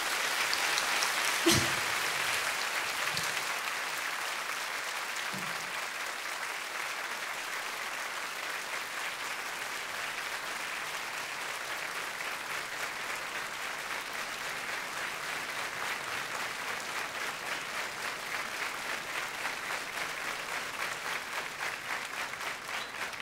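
Concert audience applauding steadily after a song, easing off slightly over time, with a single sharp hit about a second and a half in.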